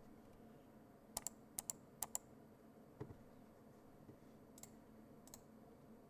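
A few scattered keystrokes on an Ikki68 Aurora mechanical keyboard with Akko Matcha Green switches on an aluminium plate: three quick pairs of sharp clacks in about a second, a single deeper knock, then two more clicks near the end.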